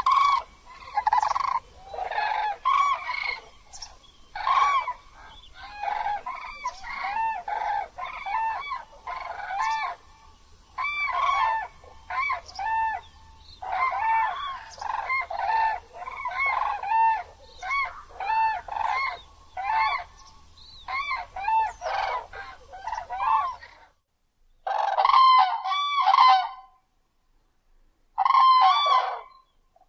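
Grey crowned crane honking calls: short, arched notes repeated in a long rapid series. After a break, two shorter bursts of calls come near the end.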